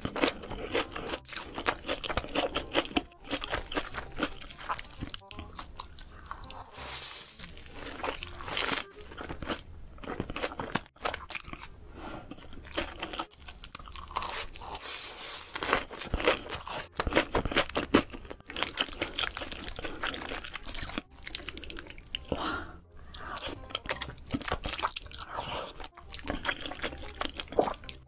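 Close-miked eating: crunching bites and chewing of a fried mozzarella cheese corndog's crisp coating, with irregular clicky crunches throughout. Near the end there is chewing of rosé tteokbokki rice cakes.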